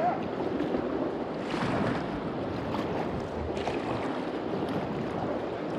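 River rapids: a steady rush of moving water around the kayak, with a couple of louder surges about a second and a half and three and a half seconds in.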